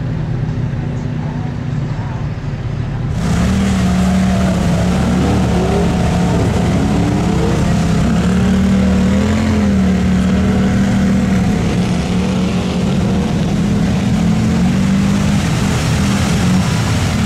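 Off-road vehicle engines running in a mud pit: a steady engine drone, with revs rising and falling. It gets louder about three seconds in.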